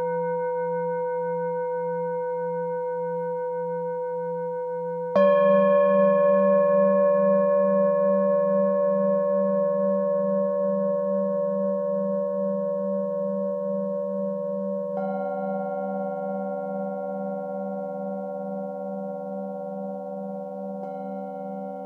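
Singing bowls struck with a mallet and left to ring: a bowl already ringing at the start, then fresh strikes about five seconds in, about fifteen seconds in and near the end, each adding a new set of tones over the still-sounding ones. The low hum wavers slowly as the tones fade.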